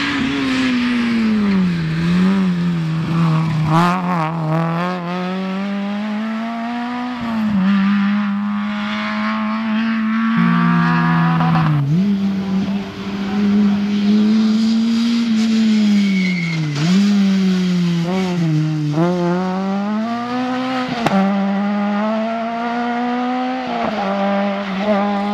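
Small rally cars' petrol engines revving hard on a tarmac stage. The engine note climbs, then drops sharply again and again at gear changes and lifts, with no pause between runs.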